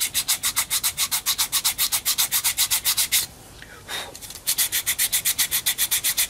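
Hand sanding of a small wooden block with a folded strip of sandpaper: fast, even back-and-forth rasping strokes, about eight a second, smoothing the wood and taking off splinters. The strokes stop for about a second a little after three seconds in, then start again.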